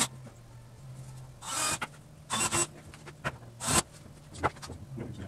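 Cordless drill driving screws into a timber frame in three short bursts of whirring, with a few sharp clicks and knocks of wood between.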